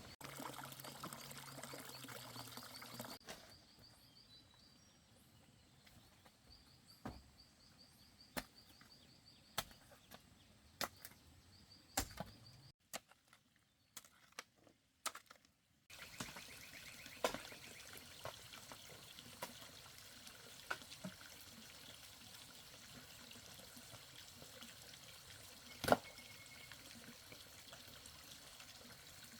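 A series of sharp knocks, roughly one a second, over a faint background. About halfway through this gives way to a steady trickle of running water, with a few light clicks and one louder knock near the end.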